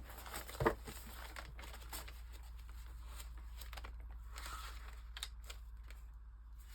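Soft rustling and handling of paper craft supplies, with one sharp knock about half a second in.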